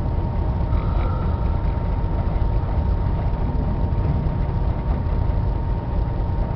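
Diesel locomotive running, heard from inside its cab: a steady, deep rumble, with a thin steady whine above it.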